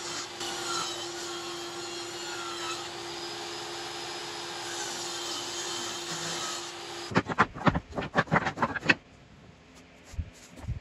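Table saw ripping pine pallet boards into staves: a steady motor hum under the blade's cutting noise, which wavers as the boards feed through. The sawing stops abruptly about seven seconds in, followed by a quick run of sharp clacks and knocks.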